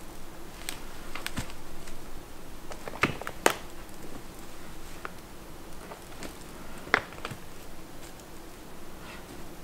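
Black bear rummaging and feeding at a log-covered bait pile: scattered sharp clicks, knocks and crunches of wood. Three stand out, two close together about three seconds in and one about seven seconds in.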